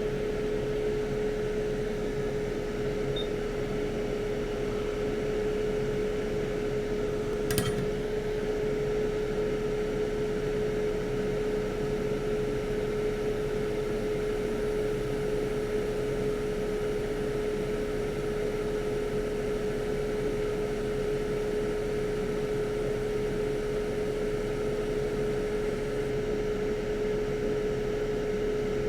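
A small blower fan running steadily: an even whir with a constant humming tone. A single sharp click about seven and a half seconds in.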